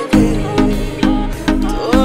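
Background music: an instrumental tune over a steady beat.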